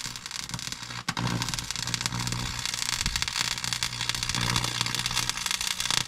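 Stick-welding arc crackling and sizzling steadily as a rod is burned onto the steel mill frame, the welder's current turned up after the rod had been sticking. A low steady hum runs under it, and the arc breaks off for an instant about a second in.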